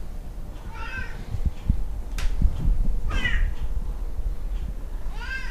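Tonkinese cats meowing to be fed: three short meows, about two seconds apart, with a sharp click and low knocks in between.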